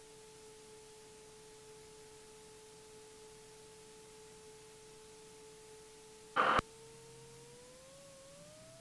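Faint steady electrical whine in the light aircraft's intercom audio, which starts to rise in pitch near the end as the engine speed comes up for takeoff. It is the sort of alternator whine that follows engine RPM. About six and a half seconds in there is one short, loud burst of noise, like an intercom or mic-key crackle.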